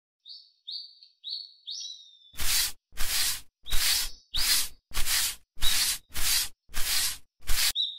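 Small bird chirping four times in short high notes, then a broom sweeping in steady strokes: about nine swishes, roughly one every 0.6 seconds, with a few more chirps over them.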